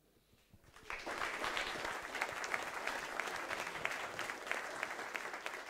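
A large audience applauding, the clapping starting about a second in.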